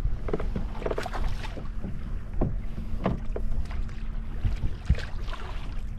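Wind buffeting the microphone over choppy water slapping against a kayak hull, with a few short knocks and a faint steady low hum.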